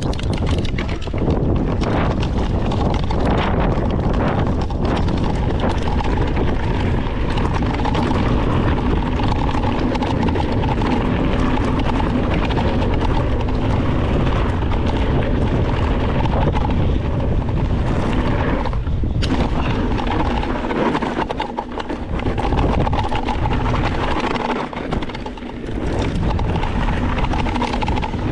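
A steady, loud engine drone over a wash of noise, with a faint constant hum, easing off briefly twice late on.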